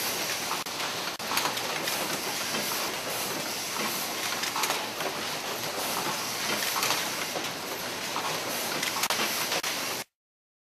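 Syringe production line machinery running: a steady mechanical clatter and hiss with scattered sharp clicks, cutting off abruptly near the end.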